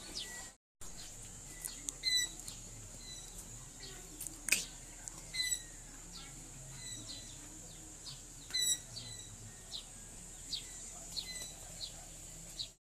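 Birds chirping outdoors: scattered short, high calls and quick downward-sweeping notes, a few of them repeating every few seconds, over a faint, steady, high-pitched whine.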